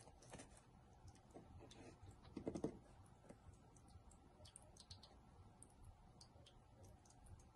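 Faint, scattered small clicks and taps of a tiny spreading tool working frosting onto a miniature cake on its cardboard board, with one louder brief bump about two and a half seconds in.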